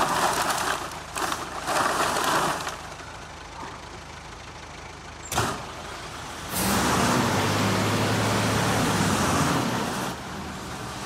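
Plastic bottles crash and rattle as a body tumbles into a recycling container. About five seconds in comes one sharp bang. From about six and a half seconds a recycling truck runs loudly with a steady low hum, and it drops away near the end.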